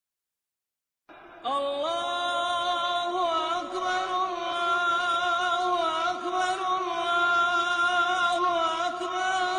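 A solo voice chanting a slow melody with long held notes that waver and turn. It comes in after about a second of silence with an upward slide.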